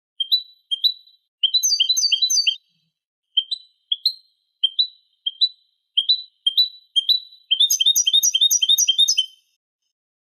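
European goldfinch song from a recorded tutor tape for teaching goldfinch chicks and hybrids: short rising chirps, some in pairs, broken by two fast trilled runs, a short one about a second and a half in and a longer one near the end.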